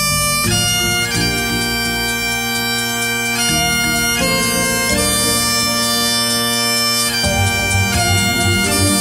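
Scottish bagpipes playing a melody over their steady drones, set against a dance-music backing track; a pulsing low beat comes in about seven seconds in.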